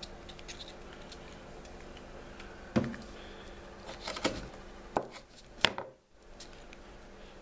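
A handful of knocks and taps of a kitchen knife on a paper-covered cutting board while a mackerel bait is bound with cotton thread and cut. The loudest knock comes a little under three seconds in, with a few more over the next three seconds.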